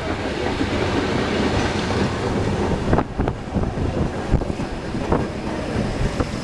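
Streetcar running along its tracks: a steady rumble of wheels on rail, with a few sharp clacks over track joints from about three seconds in.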